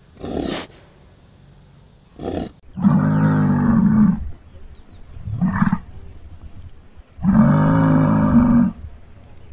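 A large wild mammal giving a series of deep calls: two short ones, then longer calls each lasting more than a second, repeated every two to three seconds.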